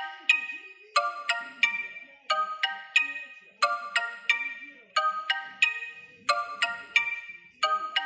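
Xiaomi Redmi Note 7 stock ringtone playing: a short phrase of three bright, chiming mallet-like notes, repeated over and over about every second and a third.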